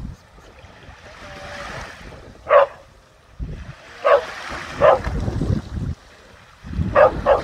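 A dog barking: five short, sharp barks, single ones a second or more apart, then two in quick succession near the end. Gentle surf and wind rumbling on the microphone lie underneath.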